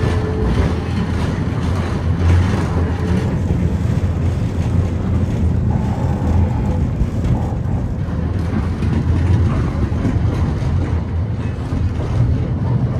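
Historic tram running along its route: a steady low rumble of wheels on rails and running gear, with a few faint clicks.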